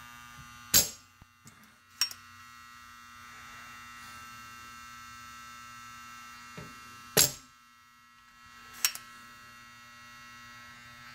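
Soldering gun buzzing steadily as it heats a joint, broken by two sharp snaps of a spring-loaded hand solder sucker firing, about a second in and about seven seconds in, each followed a second or so later by a softer click. The buzz drops out briefly after each snap. The sucker is not pulling the solder out well, which the technician puts down to it being tired or clogged.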